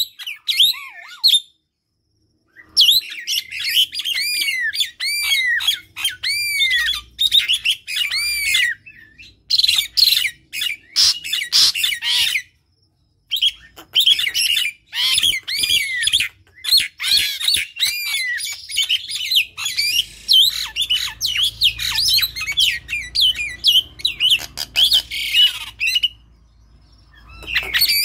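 A Javan pied starling and a common myna calling in a fast, loud mix of squawks, chattering and repeated rising-and-falling whistles. The calling breaks off briefly about two seconds in, again about twelve seconds in, and near the end.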